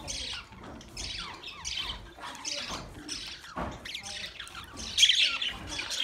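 A flock of budgerigars chattering: many short, overlapping chirps and warbles, with a louder burst about five seconds in.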